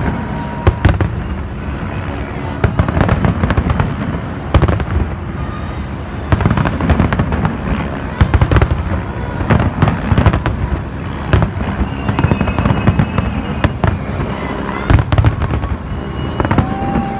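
Large professional fireworks display: many bangs in quick, irregular succession over deep, rumbling booms.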